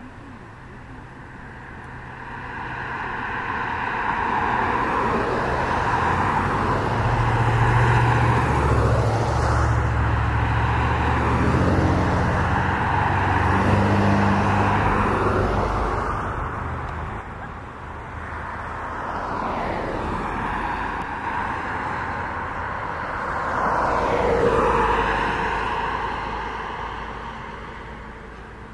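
Road traffic passing close by: several vehicles go by one after another. The longest and loudest pass is in the middle and carries a low engine hum, and another vehicle swells and fades away a few seconds before the end.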